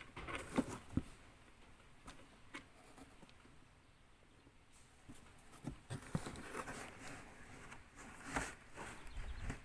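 Irregular clicks and knocks of angle grinder stand parts being handled and fitted together during assembly, loudest about half a second and a second in and again near the end.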